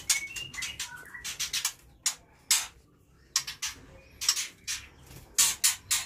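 White-rumped shamas (murai batu) calling in their breeding aviaries: clusters of sharp, clicky chirps with a few short whistled notes, coming in bursts with brief pauses between.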